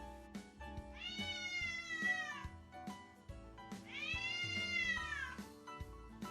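Domestic cat meowing twice, two long drawn-out meows about a second and a half each, each rising and then falling in pitch, over background music.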